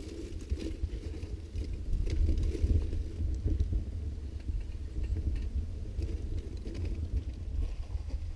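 Gusty wind buffeting the microphone, a heavy unsteady rumble, with scattered faint clicks and crackles over it.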